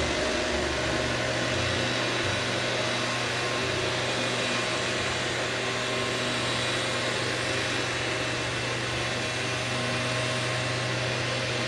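Steady mechanical hum and hiss, even throughout, with a low hum settling in about a second in.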